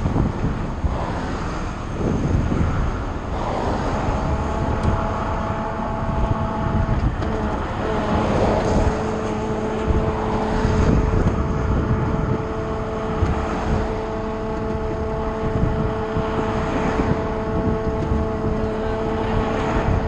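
Road traffic passing close by at speed, each vehicle's tyre and engine noise swelling and fading in turn. From about three and a half seconds in, a steady hum of several held tones runs underneath.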